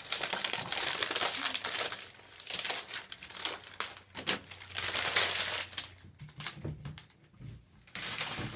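Plastic packaging crinkling and rustling in bursts as it is handled and torn open, with small clicks and handling noises.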